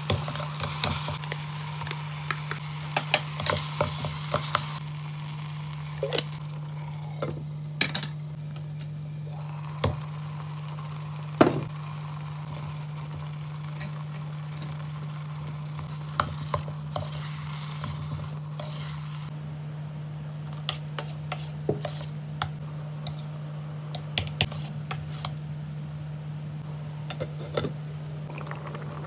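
A metal spoon stirring and clinking against the inside of an electric kettle while soya curry cooks in it, with irregular clinks and scrapes, stretches of sizzling, and a steady low hum underneath.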